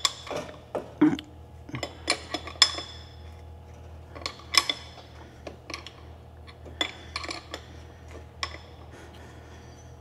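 Irregular metallic clinks and taps of hand tools and a puller being worked on an engine's crankshaft pulley.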